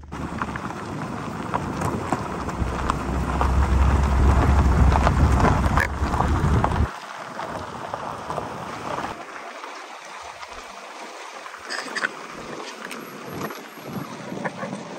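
Car rolling along a gravel dirt road: tyres crunching over the gravel, with a heavy low wind rumble on the microphone. The rumble cuts off abruptly about seven seconds in, leaving lighter gravel and wind noise with occasional gusts.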